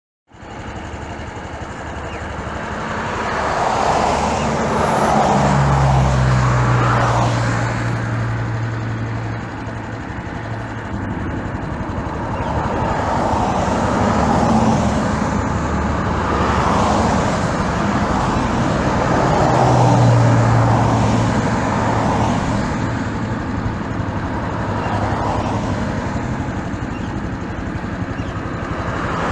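Road traffic: a continuous stream of cars passing, the tyre and engine noise swelling and fading as each vehicle goes by, with a heavier vehicle's low engine hum passing about five seconds in and again about twenty seconds in.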